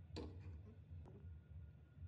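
A sharp light knock with a short ring just after the start, then a fainter knock about a second later, over a low steady hum.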